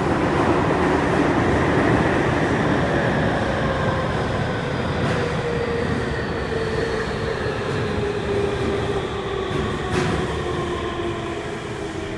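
Cabin running sound of a Tokyu 3000 series train: wheel and track rumble under the whine of its traction motors and VVVF inverter, several tones sliding slowly down in pitch as the train slows. The whine comes from the VVVF inverter software that was never updated on this set. A single sharp click about ten seconds in.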